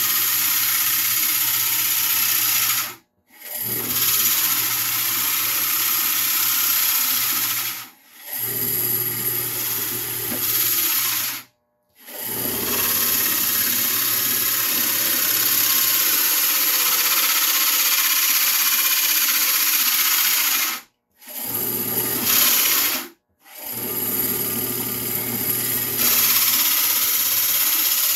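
Electric power tool running steadily at a loud level, in several stretches that each cut off abruptly to silence and start again.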